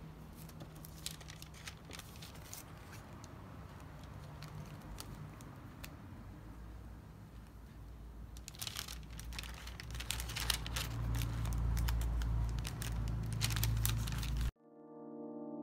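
White wrapping paper rustling and crinkling as it is handled and folded around a packed order, light at first and then a dense run of crackling from about halfway through. Near the end it cuts off abruptly and piano music comes in.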